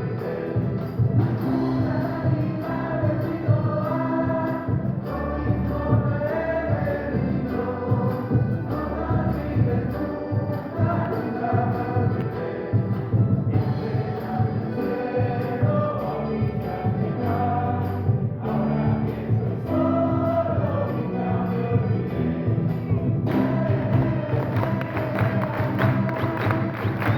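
Live orchestra of Andean and Latin American instruments playing a piece with a steady beat, the ensemble growing fuller and brighter near the end.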